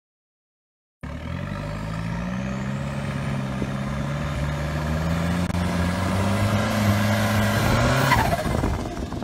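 Turbocharged diesel engine of a Thai longtail racing boat running hard under way, starting about a second in. Its pitch climbs slowly, then falls off about eight seconds in as a high whistle drops in pitch.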